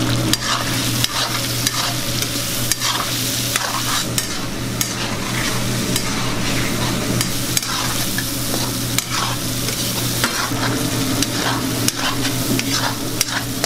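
Chicken pieces in oil and sauce sizzling in a steel wok while a long metal ladle stirs them, scraping and clinking against the pan many times. A steady low hum runs underneath.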